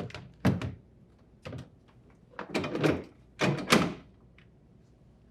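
Plastic freezer drawer of an LG refrigerator being set back into the freezer and slid into place: a string of knocks and short scraping clunks, the loudest coming about two and a half to four seconds in.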